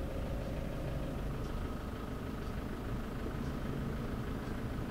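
Petrol dispenser running as fuel is pumped into a scooter's tank: a steady low hum, with a faint steady whine that comes in about a second in.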